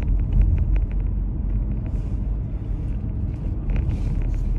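Steady low rumble of a car being driven, engine and road noise heard from inside the cabin, with a few faint clicks.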